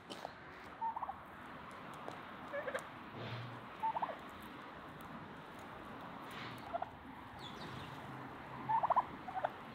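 Domestic white turkey gobbling in short, rapid bursts, about six times.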